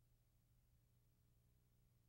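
Near silence: a faint steady low hum and hiss.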